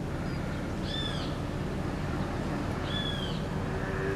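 A bird calls three times, about one call every two seconds: a clear, short, arched note each time, over steady outdoor background noise.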